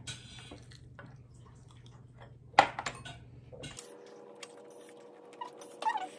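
Quiet mealtime tableware sounds: cutlery clinking on a dish, with one sharp clink about two and a half seconds in and a few faint taps around it.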